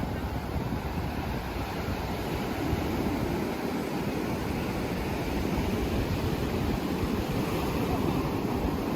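Ocean surf washing up the beach in a steady rush, with some wind on the microphone.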